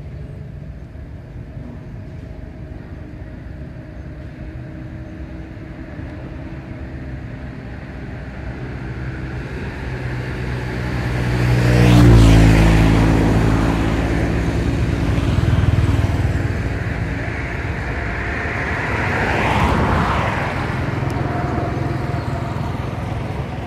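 Road traffic: a steady engine hum, then a vehicle passes loudly about halfway through with its engine note dropping as it goes by, and two more vehicles pass after it, less loud.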